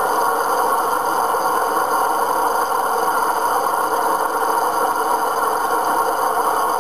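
Steady, unchanging drone of a Ford Trimotor's three radial engines in flight, on an old recording that sounds thin and hissy with almost no bass.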